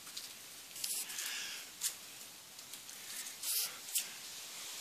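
Steady hiss with a few soft rustles and about four light clicks or knocks.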